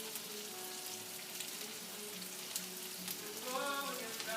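Flour-dredged chicken pieces sizzling steadily as they fry in olive oil and butter in a pan.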